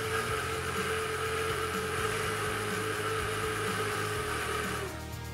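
Braun hand blender's motor running in its chopper attachment, whirring steadily as it purées lemon pieces with sugar, then dropping slightly in pitch and stopping near the end.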